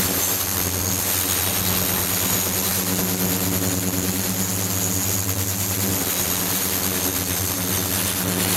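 Ultrasonic cleaning tank running with glass bottles standing in its water: a steady low hum with an even hiss over it and a faint high-pitched whine.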